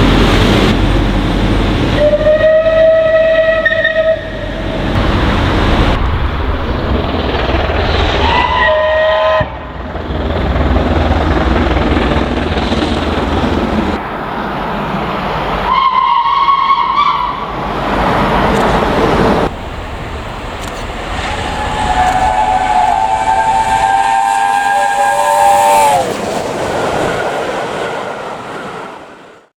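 Steam locomotive whistles sounding over the rumble of a running train, in several short clips cut together. There are single-note blasts about 2, 8 and 16 seconds in, the second one dropping in pitch. About 22 seconds in comes a longer chime whistle sounding several notes at once, which sags in pitch as it shuts off before the sound fades out.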